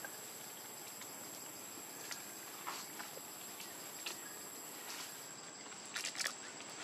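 Dry leaf litter crackling and rustling as a macaque's hand sweeps through it while foraging. A few faint crackles are scattered through, with a quick run of louder crackles about six seconds in.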